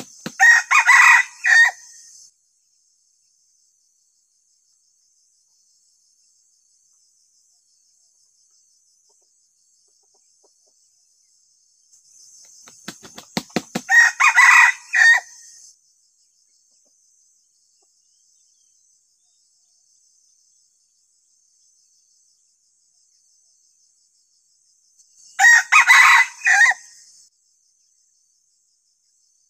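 Red junglefowl decoy rooster crowing three times, about twelve seconds apart, each crow short at about two seconds. The first two crows come right after a quick run of wing-flaps.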